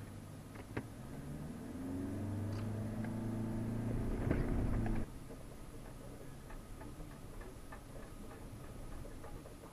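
Off-road vehicle's engine heard from inside the cabin, revving up under load with a rising pitch and loudest about four to five seconds in, then dropping suddenly to a quieter cabin hum. Light clicks and rattles from the cabin run through it.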